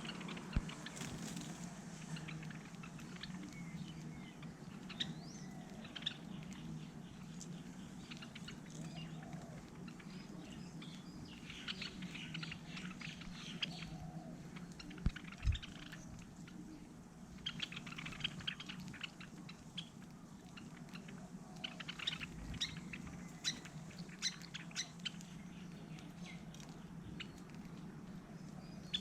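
Small birds chirping at a feeder: bursts of short, high chirps come and go over a steady low hum, with two brief low thumps about halfway through.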